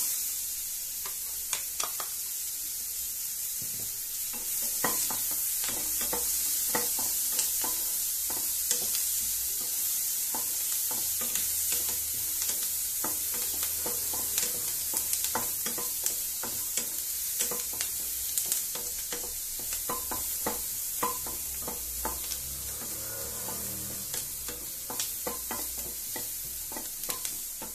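Diced onions sizzling in melted butter in a nonstick kadai, a steady frying hiss that grows louder about four seconds in. A spatula stirring them taps and scrapes against the pan in frequent light clicks.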